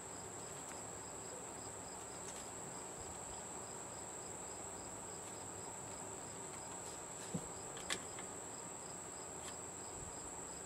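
Insects chirping steadily in the background, a constant high-pitched trill with a fainter pulsing chirp about four times a second. Two small clicks come about seven and eight seconds in.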